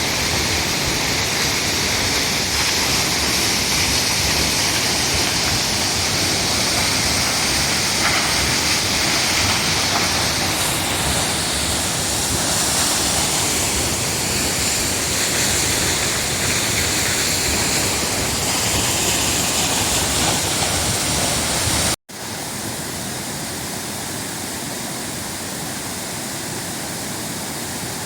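Watson Falls, a very tall waterfall, with its falling water making a steady, loud rushing. About two-thirds of the way through the sound cuts off for an instant and comes back quieter and less hissy.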